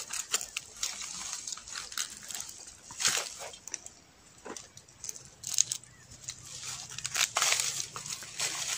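Dry leaf litter and twigs crackling and rustling, with irregular sharp snaps and knocks as someone moves and works in dry undergrowth; a dense stretch of crackling comes near the end.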